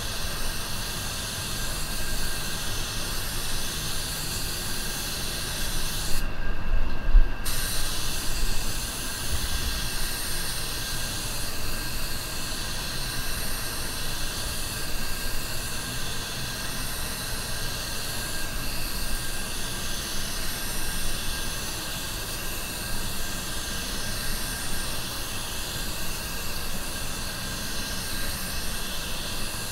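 Anest Iwata WS400 Supernova spray gun (1.3 mm tip) hissing steadily with compressed air as paint is sprayed. The hiss cuts out for about a second around six seconds in, with a few low bumps, then resumes.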